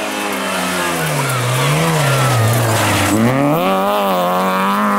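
Rally car engine at full load. Its pitch drops from about a second in as the revs fall, then climbs again from about three seconds in as it accelerates hard.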